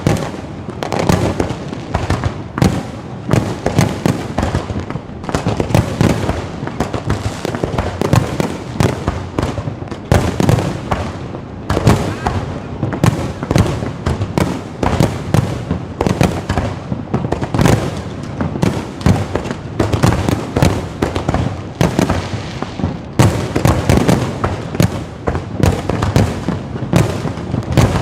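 Low-altitude fireworks batteries firing in a dense, continuous volley, many sharp bangs and crackles a second with no pauses.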